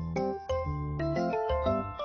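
Background music: a light melody over sustained bass notes, the notes changing several times a second.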